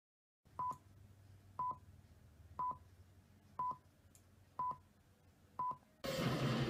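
Film countdown leader: six short, steady, high beeps, one a second, each with a faint click, over a low projector-like hum. About six seconds in, a loud rush of noise cuts in.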